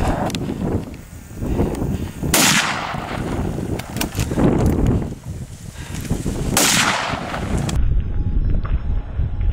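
Two rifle shots about four seconds apart, each cracking and echoing away for about half a second, fired at a running wild boar. Wind rumbles on the microphone throughout.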